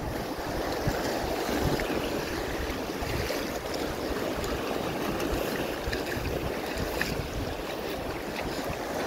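Small waves washing and foaming over a rocky shore, a steady surf wash, with wind buffeting the microphone.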